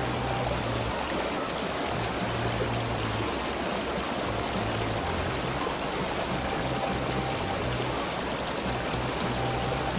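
Shallow river water rushing steadily over rocks in a riffle, with background music and its low bass line underneath.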